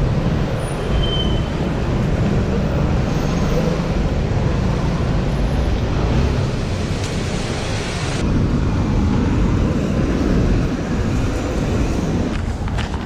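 Vehicle noise: a steady low rumble with hiss on top, the higher hiss dropping away about eight seconds in.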